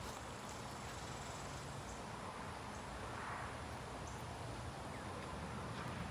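Steady outdoor background noise with faint insect chirping.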